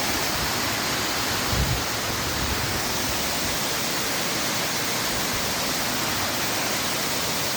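Waterfall water falling and splashing, a loud, steady rush. There is a brief low bump about one and a half seconds in.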